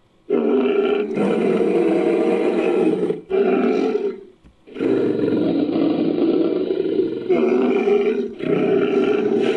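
Made-up creature sound effects for a Styracosaurus–Sumatran rhinoceros hybrid, built from Styracosaurus sound effects: a run of loud, long roaring calls with short breaks between them, the first starting about a third of a second in.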